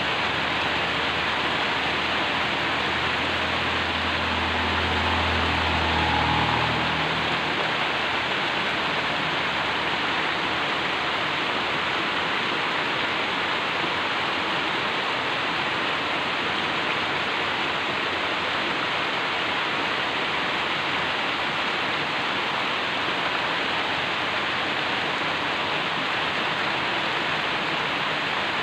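Heavy rain pouring steadily onto potted plants and wet ground. A low rumble swells underneath during the first several seconds and fades out about seven seconds in.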